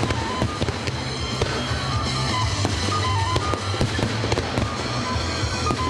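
Aerial fireworks going off in quick succession, bangs and crackles, over music with a steady bass and a melody: a pyro-musical display, where the shots are set to the music.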